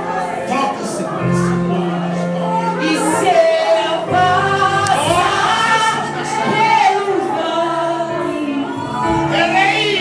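Gospel worship music with a woman singing and backing voices over sustained keyboard chords.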